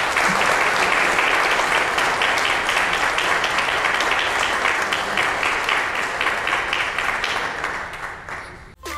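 A room of people applauding, fading a little near the end and then cutting off abruptly.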